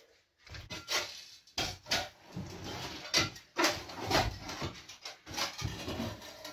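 Irregular clunks, knocks and scrapes of hand tools and debris as the floor of a stripped-out steel narrowboat hull is being ripped out.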